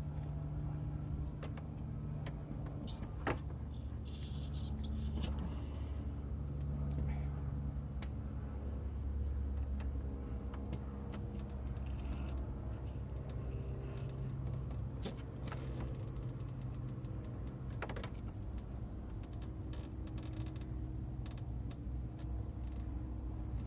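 Car engine running steadily at idle, with a few sharp clicks over it.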